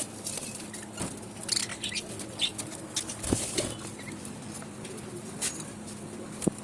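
Small pet parrots in a colony cage chirping in short scattered calls, with wing fluttering and a couple of short lower sounds about three seconds in and near the end.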